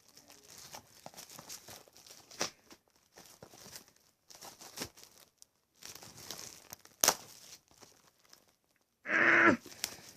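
Plastic shrink-wrap being picked at and pulled off a Blu-ray case by hand: crinkling and crackling with a few sharp clicks, then a brief loud pitched sound about nine seconds in.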